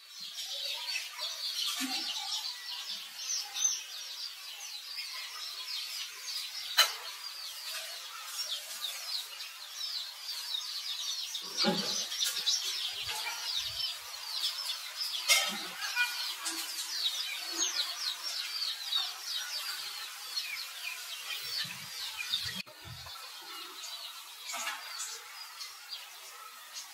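A dense chorus of small birds chirping, many short high chirps overlapping without a break, with a couple of sharp clicks and a few brief low sounds. The chorus drops in level about two-thirds of the way through.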